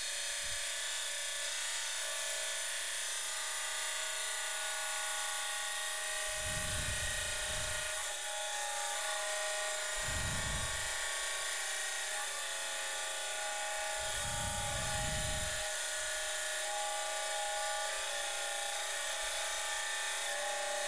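Abrasive cut-off wheel on a 1700 RPM Baldor buffer motor grinding the profile of a steel knife blank: a steady whine with a grinding hiss. Three brief low rumbles come in, about a third, half and two-thirds of the way through.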